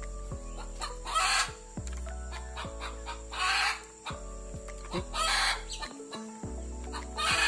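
Chickens clucking in short harsh bursts about every two seconds, over background music with sustained tones.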